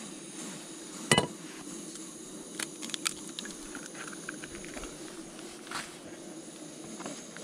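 An egg cracked with one sharp crack about a second in, followed by a few lighter clicks as it is opened into a small frying pan, over the steady hiss of a lit canister gas camping stove.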